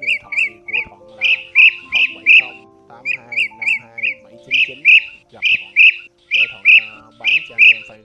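Blue-throated bee-eater calls: short, rolling chirps in quick groups of two to four, repeated all through, over soft background music with held notes. A call track made to lure blue-throated bee-eaters.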